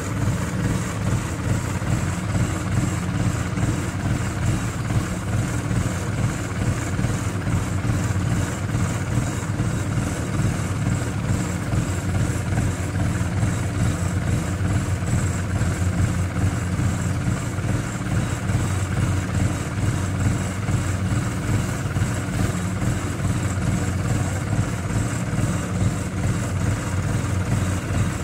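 Small rice-hauling farm tractor's engine idling steadily while it stands loaded.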